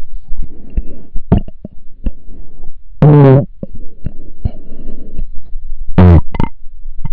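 Belching: two short, loud burps, about three seconds in and again near six seconds, between soft rumbling noise and scattered clicks.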